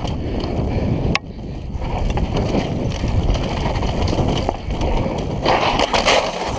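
Downhill mountain bike running fast over a loose dirt trail: a steady rush of tyre and rattle noise with wind on the helmet-camera microphone, and one sharp knock about a second in.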